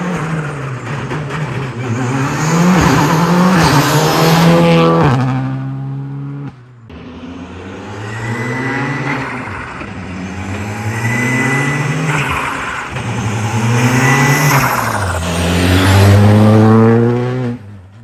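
Turbocharged WRC rally car engine revving hard up through the gears, its pitch climbing and dropping back at each shift. The sound dips sharply about six and a half seconds in, then the revs build again through several more shifts.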